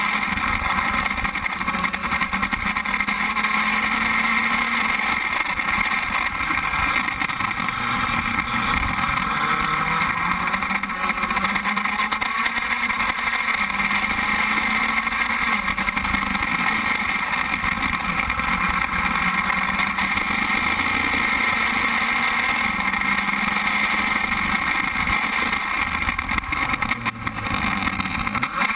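Open-wheel formula race car's engine idling while the car stands still, its pitch wavering slightly up and down, with a steady hiss over it.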